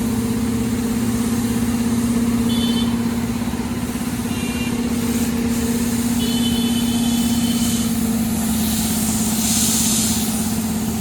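An engine running steadily with an even low hum. A few short high-pitched tones come in the middle, and a brief hiss follows near the end.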